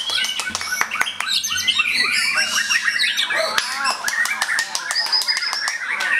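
White-rumped shama (murai batu) singing loudly at a songbird contest, with rival contest birds singing at the same time: a dense, unbroken stream of rapid whistles and trills broken by many sharp clicks.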